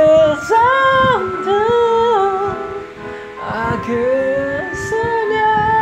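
A man singing into a handheld microphone: wordless sung phrases sliding between pitches, then a long held note from about five seconds in.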